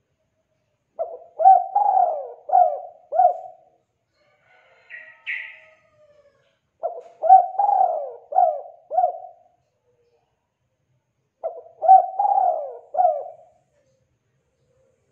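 Spotted dove cooing: three phrases of four or five notes each, a few seconds apart. A faint higher chirp between the first two phrases.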